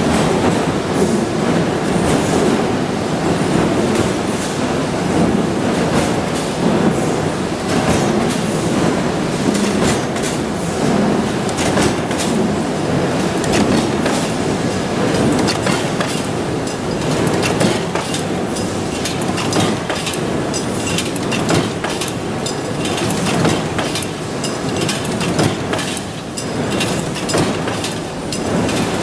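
Stamping-shop din: power presses punching steel strip into concealed-hinge parts, many sharp metallic strikes over a steady machinery rumble.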